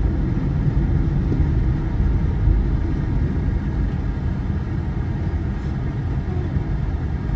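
Steady low rumble of a car driving in traffic, engine and tyre noise heard from inside the cabin.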